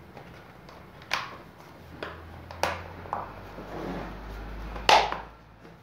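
Clicks and knocks of the plastic casing of an electric fan heater being handled, about one a second, with a sharp knock near the end as the loudest sound and a low rumble in the second half.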